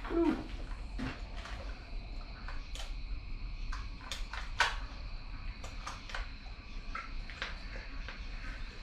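Scattered light clicks and taps from a Husqvarna 450 Rancher chainsaw being handled with its engine off, over a faint steady hum.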